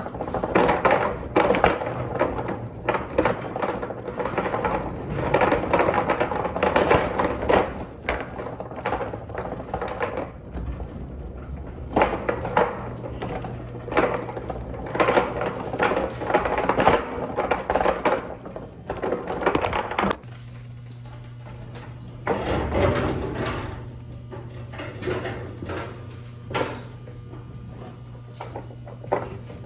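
Irregular scuffs, knocks and clatter of a person moving about and handling things in a concrete crawl space, over a steady low hum. The knocking is busiest in the first two-thirds and thins out after that, when the hum comes through more plainly.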